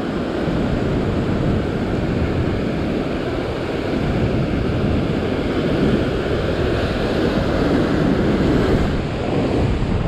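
Strong ocean waves breaking against a rock ledge and washing over it, a steady rush of white water.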